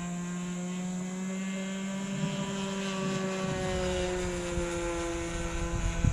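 RC sport plane's motor and propeller droning in flight overhead, with a tone that slowly falls in pitch in the second half as the plane moves off. Wind rumbles on the microphone from about halfway through.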